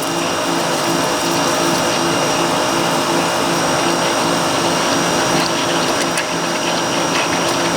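Four Ryobi electric pressure washers running together under load, their pumps driving a spray of water for a flow (GPM) test. A steady loud motor-and-pump drone with a hiss of water spray, and a low hum that pulses about twice a second.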